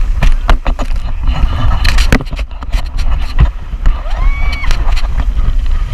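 Wind buffeting an action camera's microphone and water rushing as a banana boat is towed at speed, with a steady low rumble, many sharp knocks and clicks of the camera on its selfie stick being jostled, and a brief high-pitched squeal about four seconds in.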